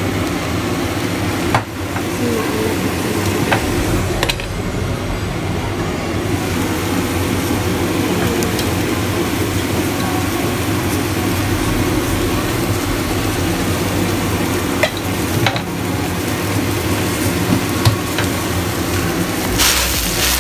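Leafy greens sizzling as they stir-fry in a wok, with a few brief clicks and scrapes as a spatula tosses them against the pan.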